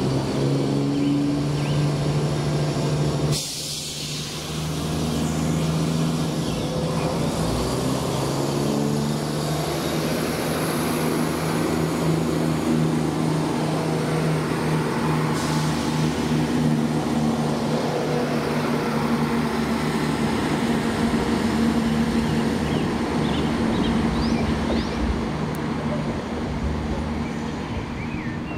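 Diesel train engine running steadily, with a short sudden dip in the sound about three and a half seconds in.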